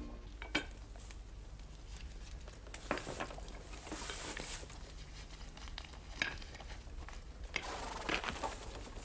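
Hands handling small objects, a cord-wrapped shaft and a metal ring: scattered small clicks and soft scrapes and rustles, a few seconds apart.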